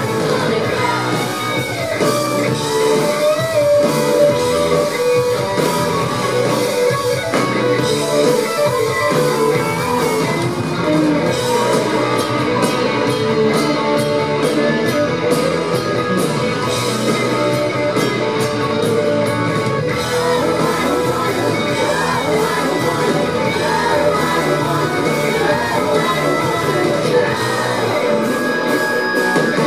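A live rock band playing a song: electric guitars and a drum kit, with a woman singing.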